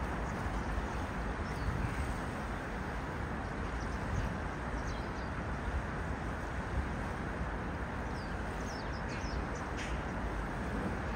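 Steady low rumble of city traffic and wind, with a few faint high chirps, like small birds, about halfway through and near the end.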